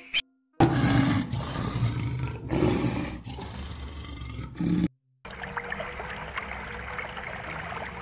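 Lion roaring in several deep, rough bursts that stop about five seconds in. A quieter steady bed of bubbling water with a faint hum follows.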